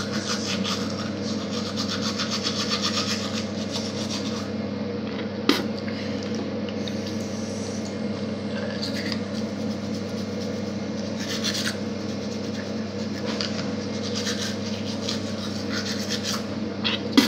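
Manual toothbrush scrubbing teeth: quick, rhythmic scratchy strokes of the bristles, strongest in the first few seconds and lighter afterwards, over a steady low hum. A sharp click about five and a half seconds in.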